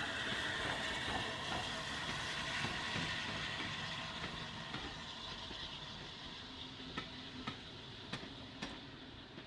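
Steam locomotive Flying Scotsman, an LNER A3 Pacific, running past at speed with its coaches, a steady dense noise that fades as the engine draws away. Toward the end the coach wheels click over rail joints, two pairs of clicks about half a second apart.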